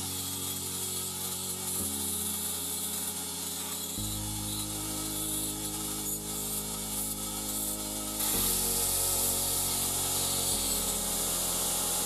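Belt grinder running with a small steel part pressed against its abrasive belt: a steady grinding hiss that gets louder about eight seconds in.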